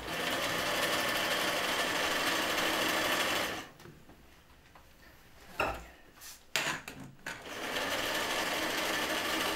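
A small machine running steadily in two spells of about three seconds each, with a few clicks and knocks in the pause between them.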